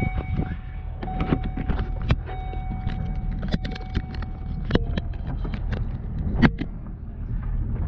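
A motor vehicle on the move, with a steady low road rumble and many irregular sharp clicks and knocks. The loudest knock comes about six and a half seconds in.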